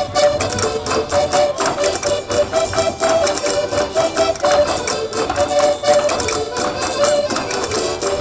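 Portuguese Minho folk dance music played live: an accordion melody over a drum and a fast, dense clatter of percussion.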